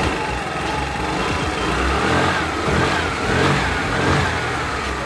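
Scooter engine and CVT transmission running with the cover back on, the revs rising and falling, mostly in the middle. The transmission runs without the abnormal noise it was brought in for.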